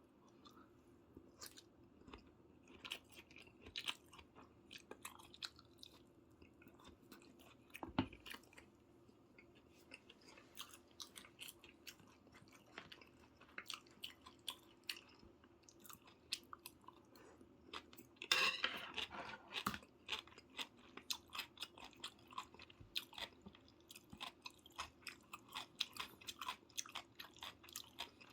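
A person chewing and eating close to the microphone: a steady run of short clicks and mouth noises, busiest and loudest about two-thirds of the way through. A faint low hum runs underneath.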